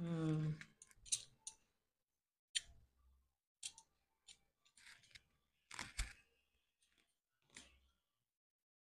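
Faint handling noise: a series of separate small clicks and brief rustles as a small packet or card is fiddled with by hand, the sharpest click about six seconds in. A short bit of voice is heard right at the start.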